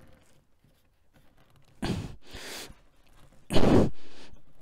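Two heavy, breathy exhalations, each about half a second long, about two seconds and three and a half seconds in. They come from a person straining to push a part into place by hand.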